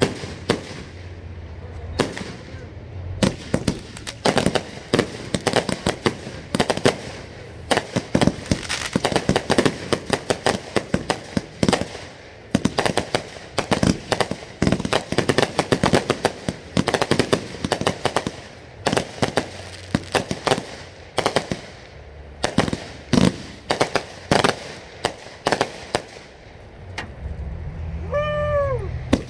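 Fireworks going off in rapid succession: dense, irregular bangs and crackles, several a second, with a few brief lulls between volleys.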